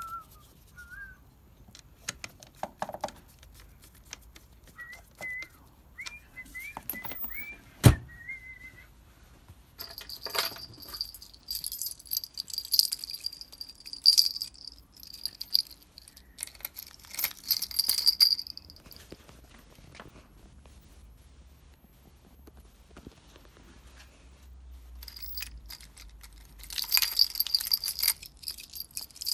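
A bunch of keys jangling on a key ring, in two long spells with a bright, bell-like ring. Earlier come a few short high whistled chirps and one sharp click.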